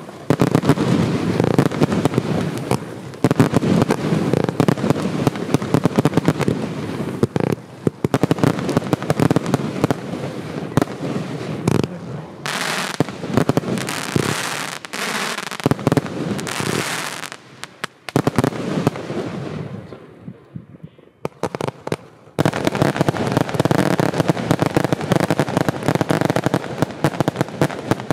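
Consumer (F2) fireworks firing: dense, rapid crackling of many small reports, with stretches of loud hissing in the middle. It thins to a lull about two-thirds of the way in, then the dense crackle resumes.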